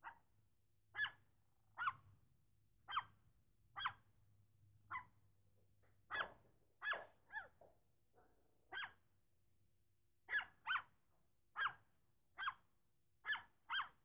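A small dog barking: short, sharp, fairly high-pitched barks, roughly one a second, with a quicker run of barks between about six and eight seconds in.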